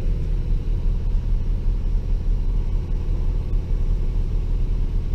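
Ford 6.7L Power Stroke V8 turbo-diesel in a 2013 F450 running steadily, a low even rumble with a fast pulse.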